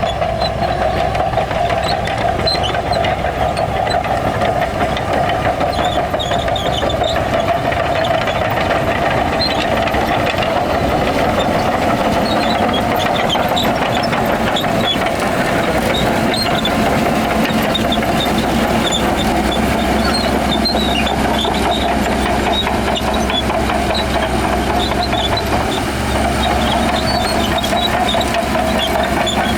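Heavy earthmoving machinery's diesel engine running steadily under load, with short high squeaks scattered through.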